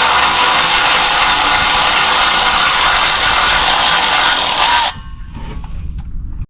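A power tool runs loudly and steadily for about five seconds, then stops suddenly, leaving a quieter low rumble.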